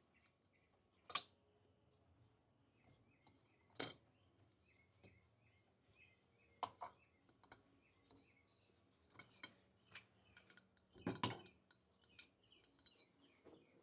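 Sharp metal clinks, four or five spread over several seconds with a double one near the end, from steel valve springs, retainers and tools handled while valve springs are fitted to a motorcycle cylinder head. Faint bird chirps repeat in the background.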